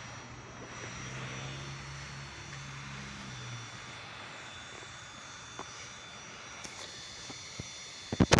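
Steady wind noise with a low droning hum that comes in about a second in and fades out after a few seconds. Right at the end come several loud sharp knocks.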